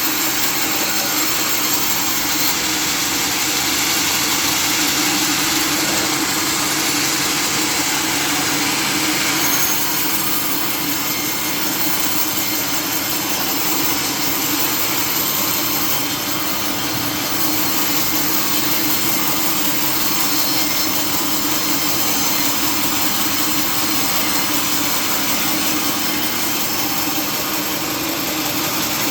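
Sawmill machinery running steadily: a continuous mechanical hum with a hiss over it.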